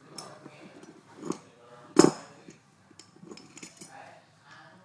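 Small metal tools and phone parts clicking and clinking on a hard work surface while a BlackBerry 8520 is taken apart, with a sharp knock about a second in and a louder one about two seconds in.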